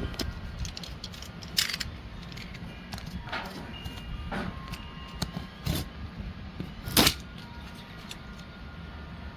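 A handful of short, sharp knocks or clatters, five in all, the loudest about seven seconds in, over a steady low hum.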